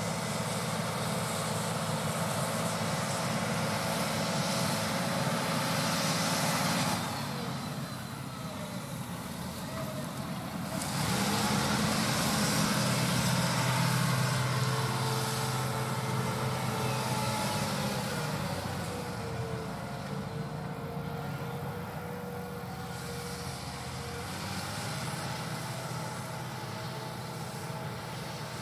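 John Deere 8R370 tractor's diesel engine running steadily as it pulls a field cultivator. It is loudest a little before the middle as the tractor passes close, then fades as it moves away.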